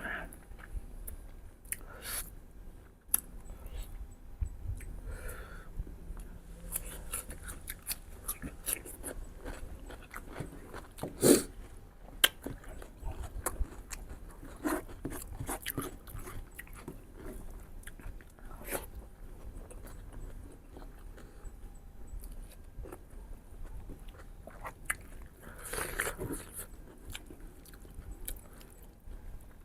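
Close-up eating sounds of mutton ribs: steady chewing and biting with many small wet clicks and smacks, and a sharp knock a little past eleven seconds in.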